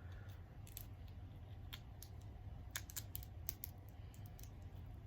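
Scattered light clicks and snaps of hands working a crab and crawfish boil, shells being cracked and picked apart, over a low steady hum.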